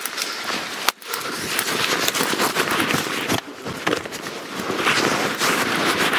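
Dense crackling rustle of dry leaves, twigs and clothing scraping close against the microphone, with a sharp knock about a second in.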